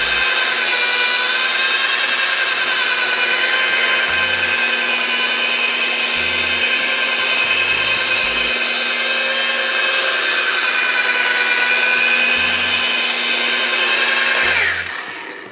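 TACKLIFE PPGJ01A rotary buffer polisher running on its low speed, its wool pad buffing dried sealer off a granite countertop: a loud, steady motor whine whose pitch wavers slightly. It winds down near the end.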